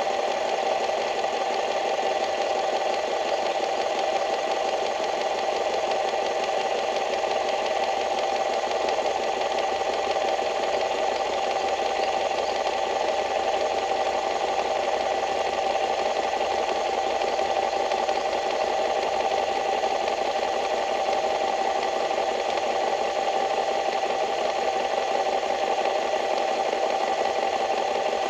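A small engine running steadily at constant speed, with a fast even chatter and a steady hum.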